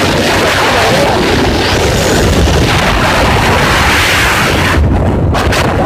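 Heavy wind buffeting the microphone on a motorcycle riding at speed, a loud uneven rumble and rush that eases briefly about five seconds in.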